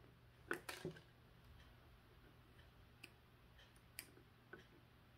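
Sparse light clicks and taps of small hand tools on a wooden desk: two louder knocks close together near the start, then a few faint snips and ticks as small wire cutters work the end of a thin electrical wire.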